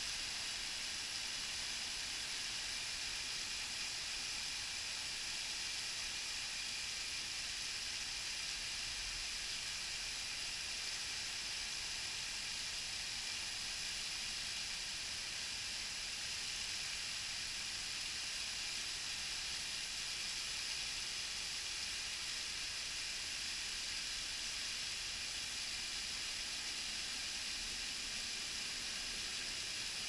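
Tall, thin waterfall falling down a cliff face and splashing: a steady high hiss of falling water and spray.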